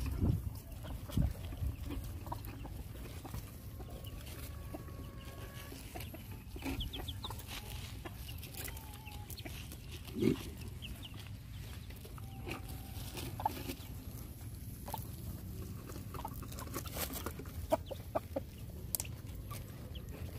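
Chickens clucking softly now and then over a low steady rumble, with one dull thump about ten seconds in.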